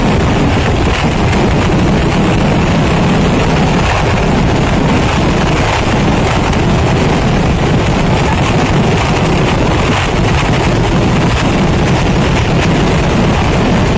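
Kerala temple fireworks (vedikettu) finale: a barrage of firework explosions so rapid that the bangs merge into one continuous, loud, steady rumble.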